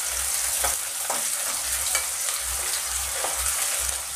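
Chopped garlic, onion and green chillies with fenugreek seeds sizzling steadily as they fry in hot oil in a metal kadhai. A metal spatula stirs them, scraping and tapping against the pan at irregular moments.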